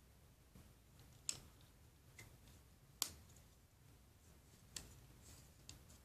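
Plastic LEGO bricks clicking and knocking as a brick-built model is pressed on and handled: four sharp clicks, the loudest about three seconds in.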